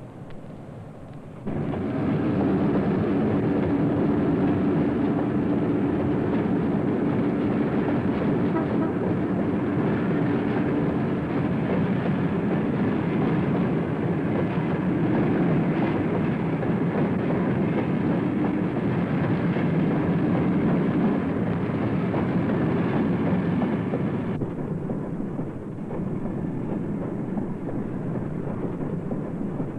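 A loud, steady mechanical rumble with a low hum running through it. It starts abruptly about a second and a half in and drops to a duller, quieter rumble near the end.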